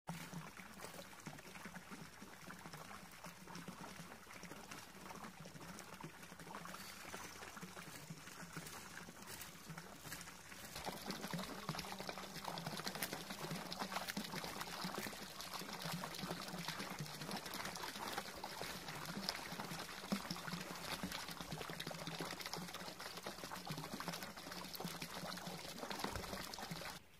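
Water from a garden pond's fountain spout pouring and splashing steadily into the pond, growing louder about eleven seconds in. A faint steady low hum runs underneath.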